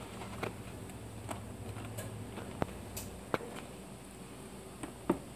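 Faint, scattered clicks and taps of a plastic vacuum-sealer bag being handled and pushed into a Foodsaver's sealing slot, about half a dozen over a few seconds, the sharpest near the end.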